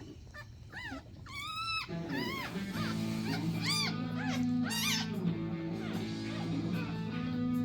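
Newborn pug puppies squealing: several short high-pitched cries, each rising and falling in pitch. Guitar background music comes in about three seconds in and carries on under them.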